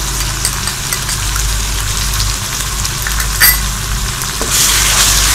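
Onion paste, garlic and ginger paste sizzling in hot oil in a wok while a wooden spatula stirs them. The sizzle grows louder about four and a half seconds in, with one sharp click about a second before that.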